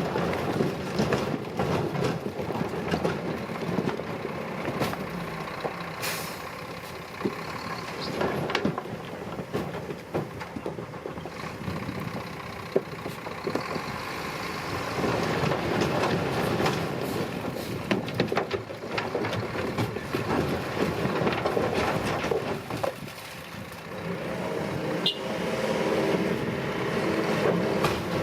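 Diesel engines of heavy earthmoving machinery running under work, with scattered clanks and knocks throughout. A steadier whine sets in near the end.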